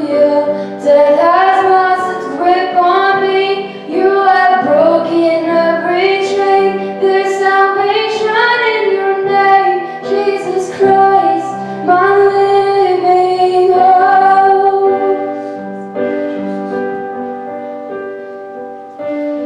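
Female vocalist singing a worship song with piano accompaniment; the voice stops about fifteen seconds in and the piano chords ring on.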